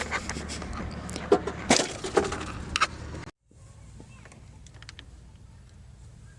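Irregular metallic clinks and knocks of hand work on metal parts, several sharp ones about a second and a half to three seconds in. It then cuts off suddenly, and a quieter stretch follows with a few faint clicks.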